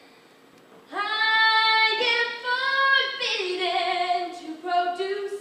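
A woman's solo singing voice: after about a second of quiet, one long held note that slides up into pitch, then several shorter, lower notes.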